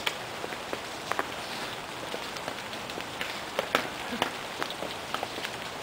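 Steady rain falling, a continuous hiss with irregular sharp drips and taps of drops striking nearby surfaces.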